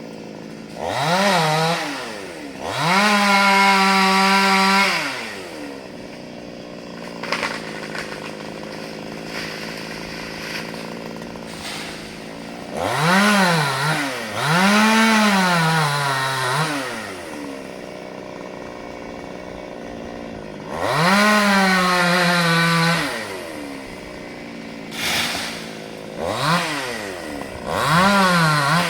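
Two-stroke chainsaw revved up to full throttle about eight times, three of them held for a couple of seconds, dropping back to idle between revs.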